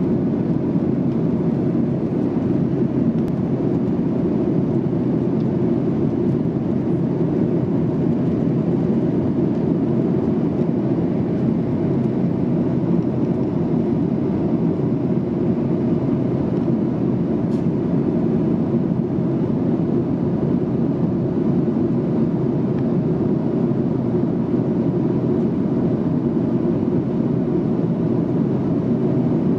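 Steady cabin noise of a Boeing 737-800 in cruise, heard from a window seat over the wing: an even, low rush of airflow blended with the drone of its CFM56-7B turbofans.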